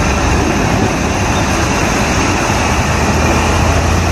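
Heavy vehicle engine running steadily: a low, even hum under a constant rush of noise.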